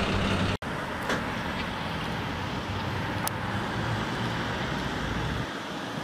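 Fire engine's diesel engine idling, cut off abruptly under a second in. Then steady road and traffic noise as a car approaches.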